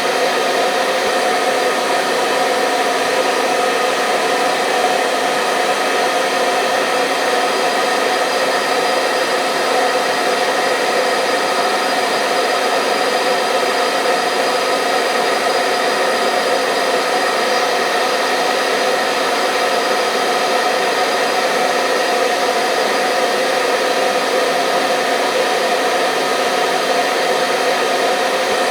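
Hair dryer running steadily at a constant speed: an even blowing hiss with a faint steady motor hum, used as soothing white noise for sleeping babies.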